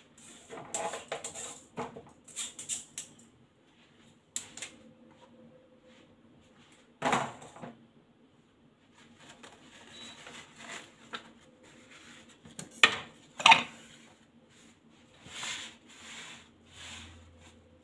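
Kitchen utensils and dishes being handled: scattered clinks and knocks with some rustling between them, the loudest two sharp knocks in quick succession about two-thirds of the way through.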